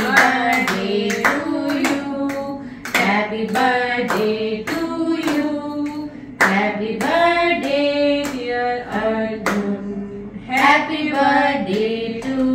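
A few people singing a birthday song together, with hand-clapping in time along with it.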